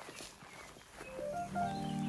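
Background music starts about a second in: held low chords with a simple stepping melody above them, over faint background noise.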